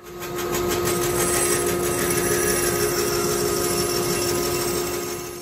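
Rikon 14-inch bandsaw running and cutting half-inch plywood: a steady, loud whir with a hum, falling away at the very end.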